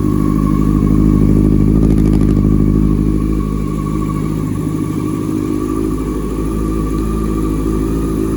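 2001 Yamaha R6's inline-four engine running steadily on choke, freshly rebuilt. It is a little louder for a couple of seconds about a second in, then settles.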